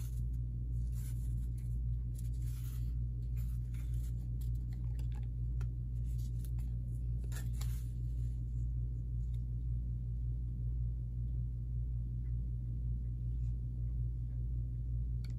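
Kraft paper wrapping and cotton twine rustling and crinkling as hands work the knot loose, busiest in the first half and softer after. A single snip of scissors cuts the twine near the end. A steady low hum runs underneath throughout.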